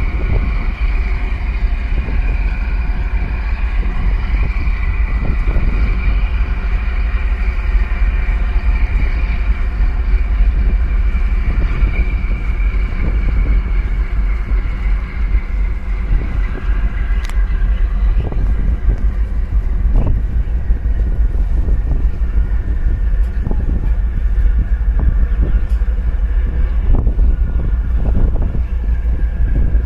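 Heavy wind buffeting on the microphone over the steady drone of a passing container ship's and its escort tugboat's engines, with a faint high whine that fades about halfway through.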